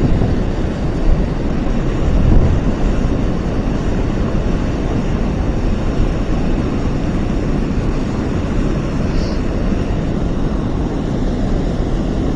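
Steady rushing noise of water pouring over a low river dam's spillway, mixed with wind buffeting the microphone.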